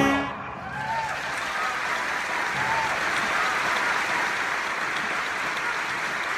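Audience applauding steadily just after the pit band's final chord cuts off, with a couple of brief cheers in the first few seconds.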